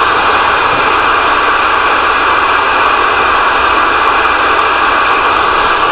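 CB radio receiver putting out a loud, steady hiss of static from its speaker, with no voice on the channel.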